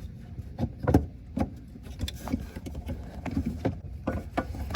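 Irregular clicks and knocks of a plastic fog light unit and bumper trim being handled and pushed into place, over a low rumble of handling noise.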